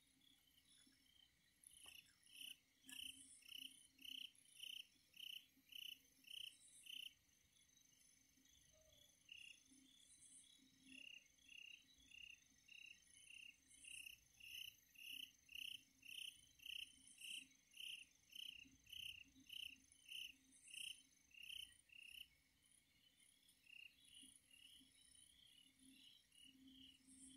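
Faint night insects chirping, cricket-like: an even run of short chirps about two or three a second, with a pause of a couple of seconds about a quarter of the way in and breaking up near the end, and fainter, higher chirping over it.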